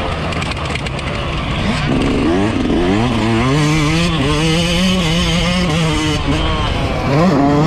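Yamaha YZ125's two-stroke single-cylinder engine at full throttle under a riding load. The note climbs in several quick sweeps about two seconds in, holds high and fairly steady, then climbs again near the end.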